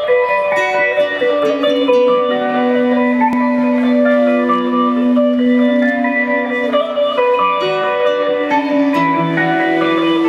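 Live band playing, led by a Telecaster-style electric guitar picking a melodic line over an acoustic guitar, with one long held low note through the middle.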